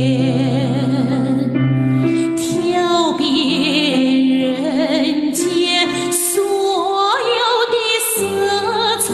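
A woman sings a Mandarin pop ballad over an accompaniment, with vibrato on her held notes and a slide up to a higher note about seven seconds in. These are high notes sung with an open throat, which the singer calls powerful but not blaring or squeezed.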